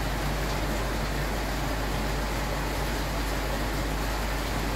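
Steady background noise: a constant low hum under an even hiss, with no distinct events.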